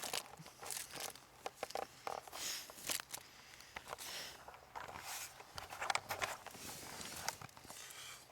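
Irregular rustling and crinkling close to the microphone, with small knocks and clicks: handling noise from people moving about.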